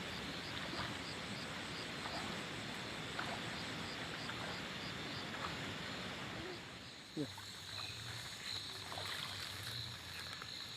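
Night-time outdoor ambience: a steady rushing noise with a high, regular chirping of an insect or frog, about three pulses a second. After about seven seconds the rushing eases and a high steady trill carries on, with a few faint short sounds.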